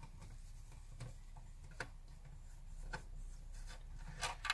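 Screwdriver backing out the circuit-board screws of a 1980s MB Bigtrak's plastic chassis: faint scattered ticks and scrapes, with a couple of louder clicks near the end.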